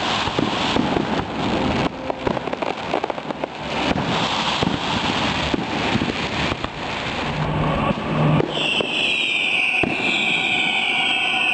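Fireworks display: a dense run of crackles and bangs from bursting aerial shells. From about eight and a half seconds in, a high wavering whistle rises over the crackling.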